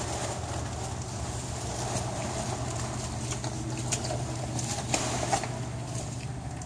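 Tow vehicle's engine idling with a steady low hum, with a few sharp clicks about four to five seconds in.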